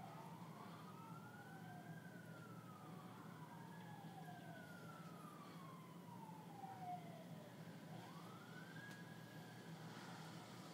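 Faint emergency siren wailing, its pitch rising and falling slowly over several seconds per sweep, with two sweeps overlapping in places, over a steady low hum.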